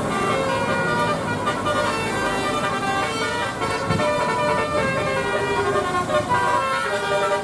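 Basuri musical horn set playing a tune: a continuous run of stepped horn notes over passing road traffic.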